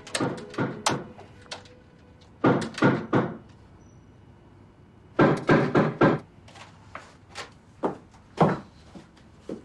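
A series of sharp knocks and thumps in irregular clusters, with the loudest groups about two and a half seconds in and around five to six seconds in.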